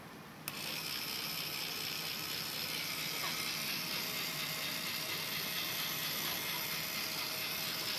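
Small electric motor in a homemade cardboard RC truck running with a steady whir, switched on with a click about half a second in.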